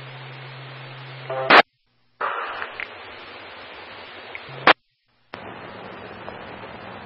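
Police radio scanner hiss on an open channel between transmissions, with a low steady hum underneath. Twice, a sharp squelch burst cuts the channel to dead silence for about half a second before the hiss comes back.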